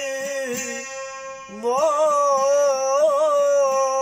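Persian-language folk song: a singer holds a long note, breaks off for about a second, then comes back in louder with ornamented, wavering held notes. Underneath runs an instrumental accompaniment with a steady beat.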